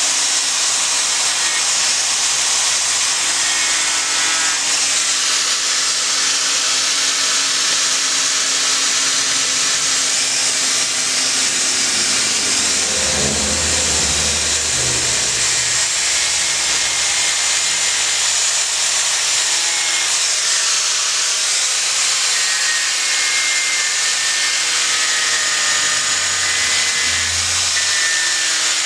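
Electric angle grinder with an abrasive disc running and grinding a block of monkeypod wood: a steady loud hiss with a whine whose pitch shifts as the disc is pressed into the wood.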